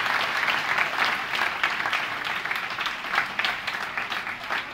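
Large audience of schoolboys applauding, many hands clapping at once, slowly dying down toward the end.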